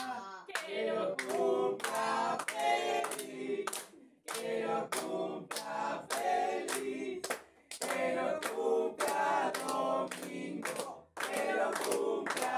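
A small group singing a birthday song together and clapping in time, about two claps a second, with short breaks between the sung lines.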